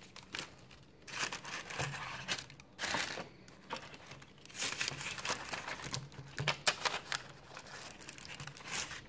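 Tissue paper and cardboard packaging rustling and crinkling in irregular bursts as items are handled and lifted out of a box.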